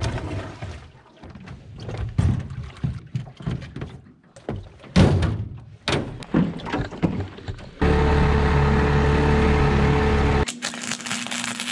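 Irregular hollow knocks and thuds of footsteps and a gas can set down in a small aluminium boat. About eight seconds in, a small tiller-steered outboard motor cuts in, running loud and steady for about two and a half seconds. It gives way to a quieter steady hum with clicks.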